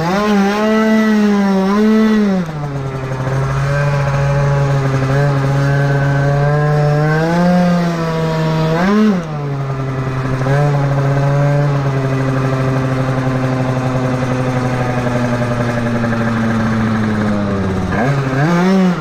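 Yamaha scooter's two-stroke engine, fitted with a Malossi MHR 77 big-bore kit, under way in traffic. Its revs blip up and down, then hold at one steady pitch while the scooter's variator carries it along. The revs rise again briefly about 7 and 9 seconds in, and once more near the end.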